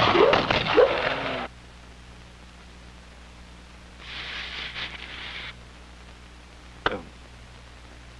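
Sound effects from an animated film's soundtrack: squeaky, animal-like cries that slide up and down in pitch, cutting off sharply about a second and a half in. A steady low hum remains, with a brief hiss around four seconds in and a single click near the end.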